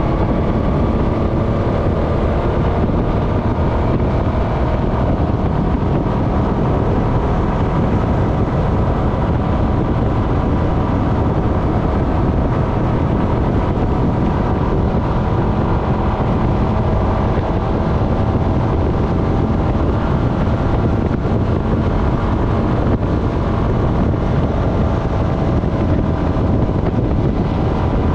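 Honda FourTrax Foreman ATV's single-cylinder engine running steadily under way, with wind noise on the microphone.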